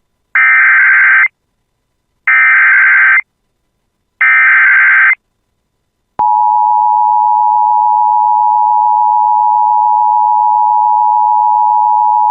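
Emergency Alert System SAME header: three one-second bursts of digital data tones, about a second apart. About six seconds in, the steady two-tone EAS attention signal starts abruptly and holds. Together they announce a severe thunderstorm warning.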